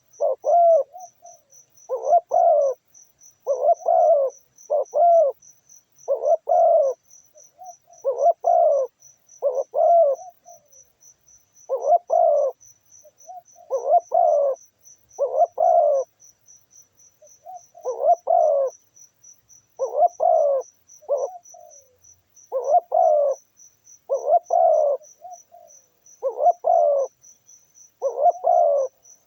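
Doves cooing over and over in short phrases of a few low notes, one phrase every second or two, with a brief pause near the middle. An insect trills steadily at a much higher pitch underneath.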